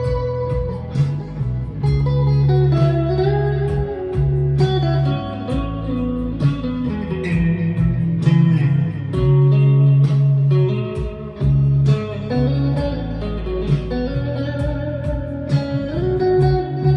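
Ibanez AZES electric guitar played clean through a Boss Katana 50 amp: a continuous run of picked single notes and chords, with a bright, plinky tone.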